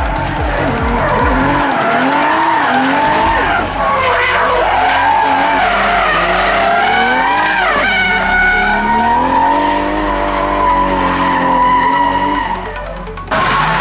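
Drift car engine revving hard, pitch rising and falling over and over as the car slides, with tyres skidding on the asphalt.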